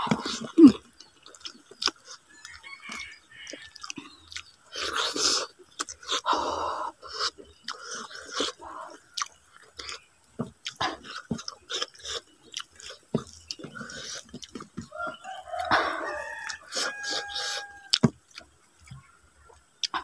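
Close-up chewing of a hand-fed mouthful of rice with salted fish sambal and raw papaya leaves: many small wet clicks and smacks of the mouth. A chicken calls briefly about fifteen seconds in.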